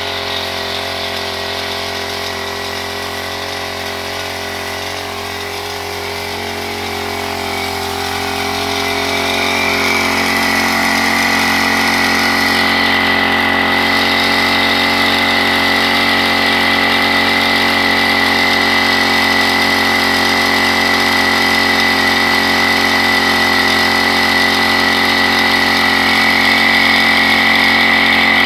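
Small engine of a Honda backpack motorised mist sprayer running steadily. About eight to ten seconds in it gets louder and a high whine comes in as it blows pesticide spray into a palm crown, then it holds at that pitch.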